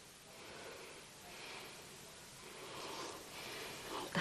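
Faint, heavy breathing: a few audible breaths about a second apart, from a woman seething with anger.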